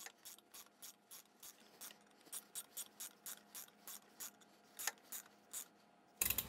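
Ratcheting wrench clicking in a steady run of faint ticks, about three a second, as it cranks the installer tool's threaded rod to press a new inner cam needle bearing into a Milwaukee-Eight engine case.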